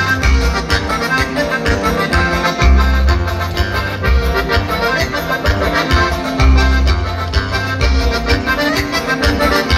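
Live Mexican regional band music played through the stage loudspeakers: an accordion leads over a heavy bass line in an instrumental passage, with no singing.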